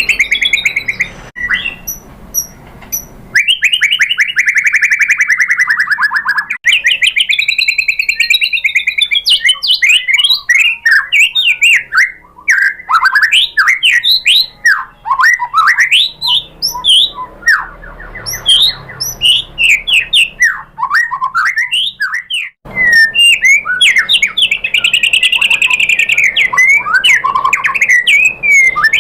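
White-rumped shama singing a long, varied song of rapid trills, whistled notes sweeping up and down, and quick chirps. A fast rattling trill that falls in pitch comes a few seconds in, and there is a brief break past the middle.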